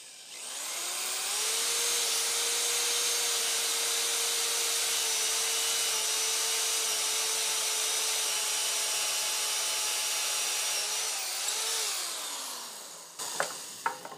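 Cordless drill with a twist bit boring through a 3D-printed plastic drill guide into wood. The motor whine rises to speed in the first second or so, holds steady for about ten seconds, then winds down with falling pitch near the end, followed by a few knocks.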